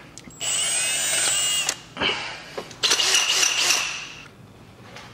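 Cordless drill spinning the thread-repair kit's step drill bit in a head bolt hole in the engine block, in two short runs of about a second and a half each, its whine shifting in pitch. The bit has reached its built-in depth stop and is spinning without cutting further, which marks that the hole is drilled to depth.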